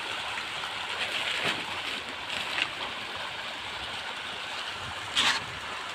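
A dense shoal of farmed fish churning and splashing at the pond surface in a feeding frenzy, a steady rushing of broken water with a few louder splashes, the sharpest a little after five seconds in.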